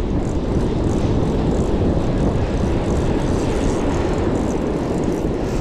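Steady wind rumble on the microphone mixed with breaking surf, a dense, unbroken roar with no distinct events.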